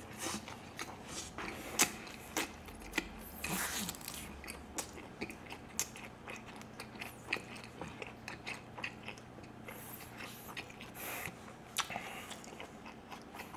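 Close-up chewing of a bite of tortilla wrap filled with chicken and raw vegetables: a dense run of small wet mouth clicks and smacks with soft crunches.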